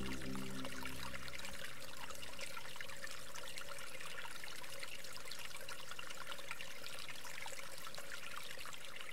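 Steady trickling and rushing of a small stream running over rocks, with the tail of soft music fading out in the first couple of seconds.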